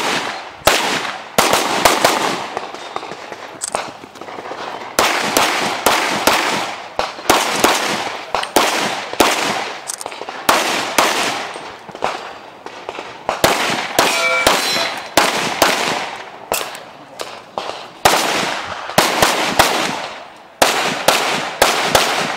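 Rapid pistol fire in quick strings of shots, each shot sharp with a short echo, broken by brief pauses between strings.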